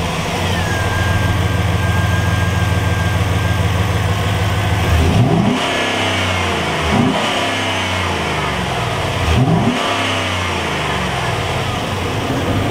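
The 6.0-litre LS V8 of a 2009 GMC Sierra 2500HD, just started and idling through its factory airbox intake. In the second half it is revved up and let fall back three times, then settles back to idle.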